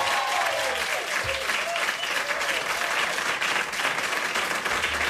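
Audience applauding steadily, with a few whoops and cheers in the first second or two.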